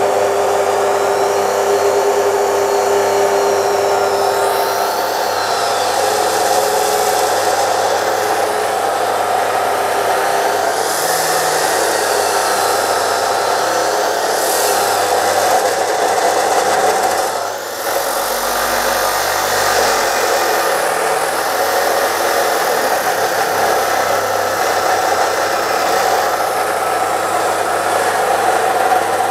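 DeWalt D28730 14-inch abrasive chop saw cutting through a steel wide-flange beam: the 2300 W motor runs with a steady roar while the disc grinds through the steel. The motor is straining under the heavy cut yet keeps running without stalling. The sound dips briefly about two-thirds of the way in.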